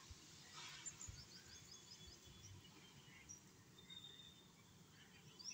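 Near silence, with faint bird chirps in the background in short runs, early and again near the end.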